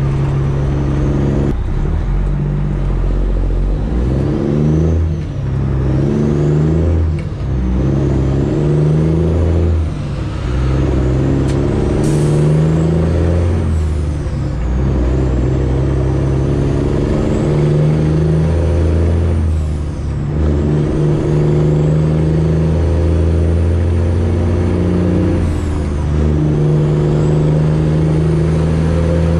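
Freightliner Classic XL semi truck's straight-piped diesel engine pulling loudly under way. Its note breaks briefly and then resumes at a changed pitch several times: gear shifts.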